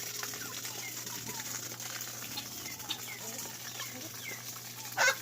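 Free-range chickens calling: many small peeps and clucks, then one loud, sharp squawk near the end.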